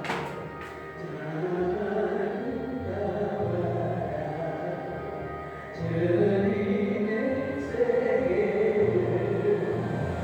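Christian worship music from a prayer house: slow, held notes with singing voices, like a hymn. A sharp click comes right at the start.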